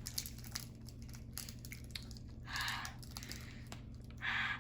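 Crinkling and crackling of a plastic snack wrapper being handled, with two short, louder rustles.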